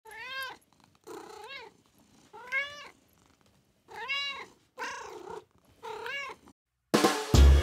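A cat meowing six times, each meow short and rising then falling in pitch, with pauses between. Music with a beat starts near the end.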